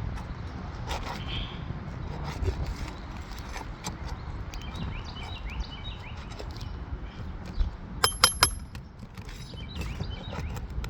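Hand tools working under asphalt roof shingles to pry out staples: scattered scrapes and light clicks, with a quick run of four or five sharp metal taps about eight seconds in.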